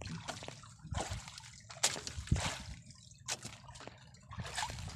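Sea water lapping and splashing against the hull of a small outrigger boat in irregular short splashes, with dripping as a fishing handline is hauled in wet, hand over hand.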